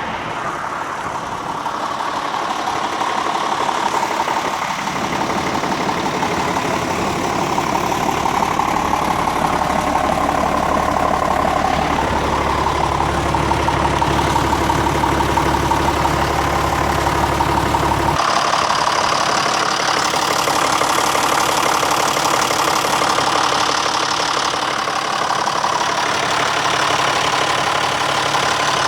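John Deere 6605 tractor's diesel engine running steadily. About two-thirds through the sound changes abruptly: the deep rumble drops away and a higher whine comes up.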